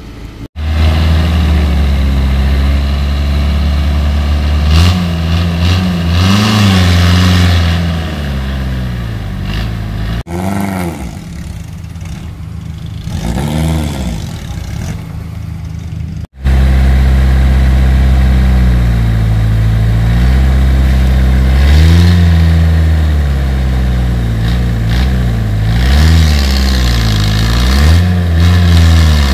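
Off-road vehicle's engine working hard, revved up and down again and again as it climbs and crawls. The sound cuts off abruptly twice, and the middle stretch is quieter.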